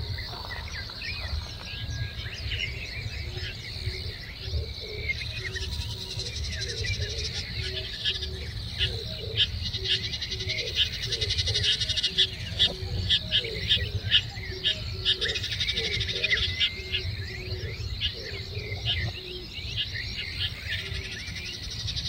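Wild birds chirping and calling, many short high notes that are busiest in the middle, with a lower call repeated over and over through the middle stretch. A steady low rumble runs underneath.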